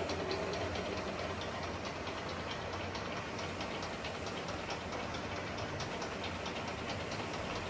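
Pinacho S-90/260 lathe running with the carriage on power feed at its maximum feed rate: a steady gear-train running sound with a light, rapid ticking.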